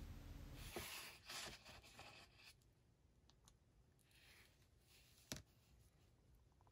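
Faint handling of 3D-printed plastic figure parts: soft scraping and rubbing in the first couple of seconds, then one small click about five seconds in, otherwise near silence.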